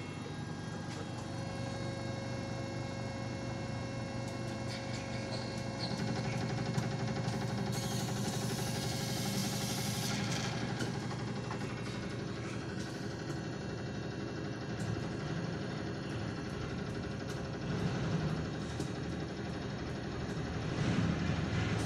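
Sysmex hematology analyzer running its start-up cycle: a steady mechanical hum with scattered small clicks, and a hiss for a couple of seconds about eight seconds in.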